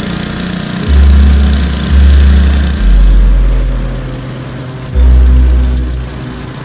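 Background music with deep sustained bass notes, over the steady running of a walk-behind commercial mower's engine driving a leaf vacuum.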